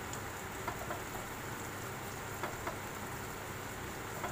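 Ginger and garlic sizzling in hot oil in a wok: a steady fizz with a few scattered sharp pops.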